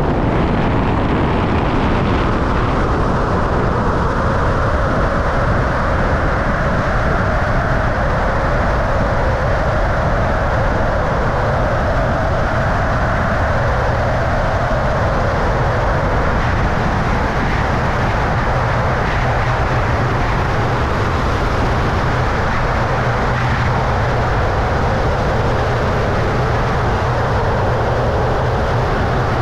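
Zipline trolley running fast along a steel cable: a steady, loud whirring rush of pulley wheels on the line, mixed with wind rushing over the microphone.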